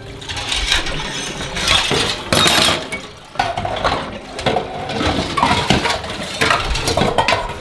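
Dishes and cutlery clinking and clattering in a sink as they are washed by hand.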